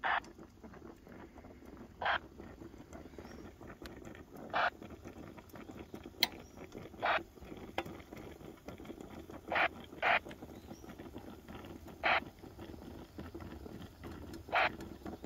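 Stovetop coffee percolator on an electric hot plate, percolating: short gurgling spurts come about every two to two and a half seconds as boiling water is pushed up the stem into the glass knob.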